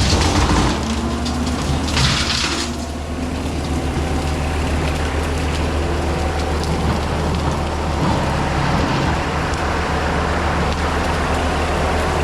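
John Deere 326E skid steer's diesel engine running steadily under load, driving a hydraulic brush cutter that shreds brush with a crackling, hissing noise, with a brief louder burst of cutting about two seconds in.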